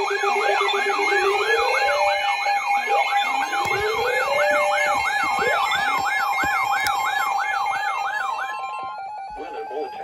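Several weather alert radios alarming at once for a severe thunderstorm warning: a wailing siren sweeps about two and a half times a second over steady alert tones and slower rising chirps. It dies away about nine seconds in.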